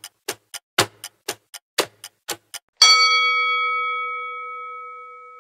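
Countdown-timer sound effect: clock ticking about four times a second, then a single bell ding about three seconds in that rings on and slowly fades, marking the end of the countdown and the answer reveal.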